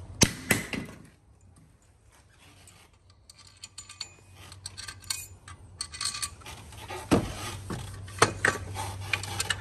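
Metal clinks and knocks as the alternator, its bolts and hand tools are handled during an alternator replacement. The loudest is a sharp clink near the start; after a quieter couple of seconds, scattered clinks and a few duller knocks follow.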